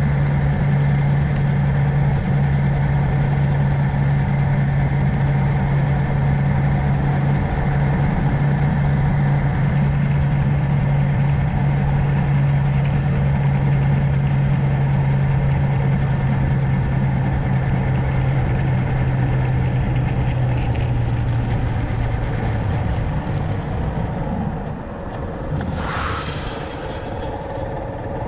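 Suzuki GrassTracker BigBoy's single-cylinder engine running at a steady note, which eases off and quietens about three quarters of the way through. A short, higher sound comes a couple of seconds later.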